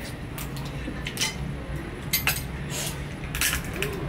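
Cutlery and dishes clinking at a meal: a handful of scattered short clinks and taps over a low steady hum.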